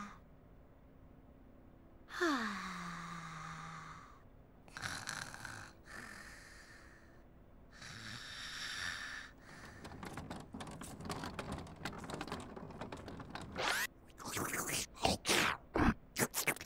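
A sleeping Teletubby character's snoring: a long falling sleepy sigh, then breathy snores. From about ten seconds in, a busy run of quick clicks and squeaky sound effects takes over, loudest near the end.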